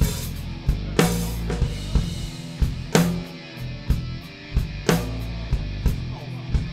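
Live rock band playing: a full drum kit with kick and snare under regular hi-hat ticks, hitting big accents about every two seconds, over sustained electric guitar and bass.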